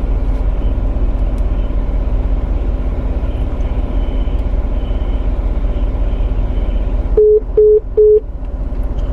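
Steady low rumble inside a car cabin, then, about seven seconds in, three short identical beeps in quick succession: the tones of a phone call ending after a silent line.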